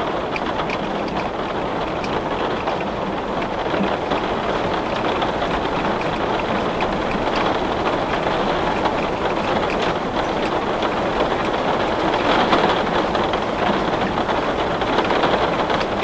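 Heavy rain beating on window glass: a steady, dense hiss of drops with faint individual drop taps, briefly heavier about twelve seconds in.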